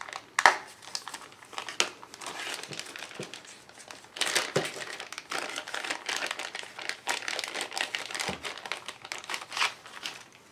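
Plastic wrapping crinkling and rustling in irregular crackles as a board game box is opened and its contents handled.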